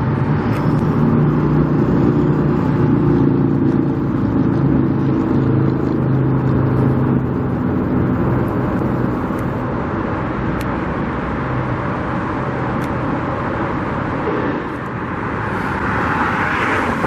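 Road traffic: a motor vehicle's engine hums steadily over road and tyre noise for the first several seconds, then fades, and another vehicle swells past near the end.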